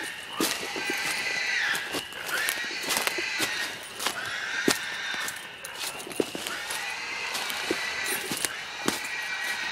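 A hog bay: hunting dogs holding a wild sow at bay, with a run of drawn-out high-pitched cries about once a second and sharp clicks throughout.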